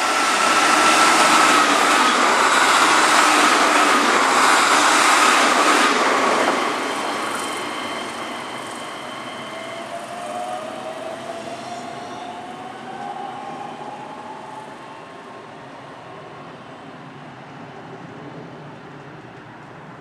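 Keihan electric commuter trains at a station: a train runs through with loud wheel-and-rail noise and a high whine that slowly drops in pitch, fading after about six seconds. From about ten seconds in, an electric traction motor whine rises in pitch as a train accelerates away.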